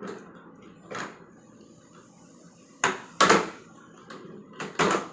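Hard plastic knocks and clacks from a toddler's ride-on swing car being handled on a tiled floor, in two sharp pairs about three seconds in and again near the end.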